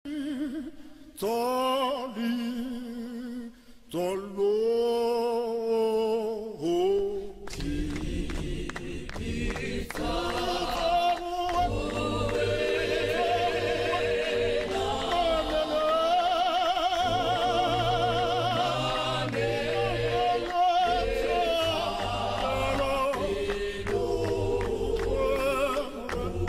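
A church choir singing in harmony: a lead voice sings alone, with short breaks, for the first few seconds, then the full choir comes in about 7 seconds in, with handclapping.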